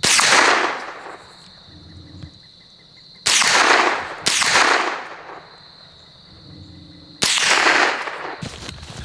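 Four shots from a .22 rifle, each ringing out with a short echo: one right at the start, two about a second apart a little past three seconds in, and one about seven seconds in.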